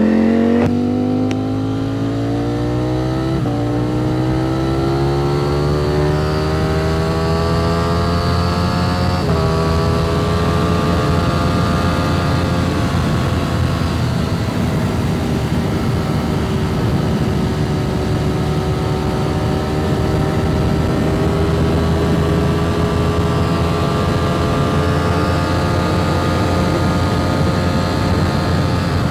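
Ducati Streetfighter V4S's V4 engine through a Termignoni slip-on exhaust, under way on the road. Its pitch climbs steadily over the first several seconds as the bike accelerates, then holds at a fairly even cruising note. Wind rumbles on the microphone underneath.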